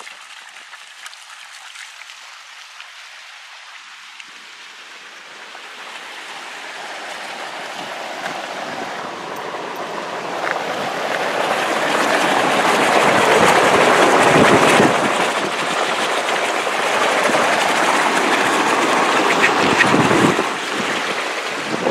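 Steam and boiling water rushing from a volcanic hot-spring vent: a steady, noisy rush that builds up from about four seconds in and stays loud.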